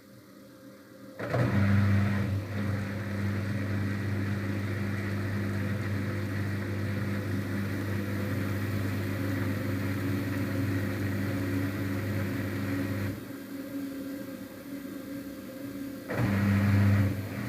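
Daewoo DWD-FT1013 washing machine's motor turning the drum with a steady low hum, starting about a second in, stopping about 13 seconds in and starting again near the end. The drum turns in stops and starts to spread the load evenly before the spin.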